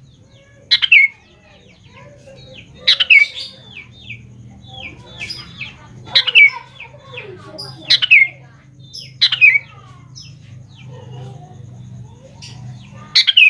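Sooty-headed bulbul (kutilang) calling: six loud, quick calls of a few notes falling in pitch, spaced one to four seconds apart, with softer chirps between them.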